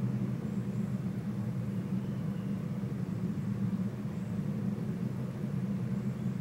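Steady low hum with no distinct events.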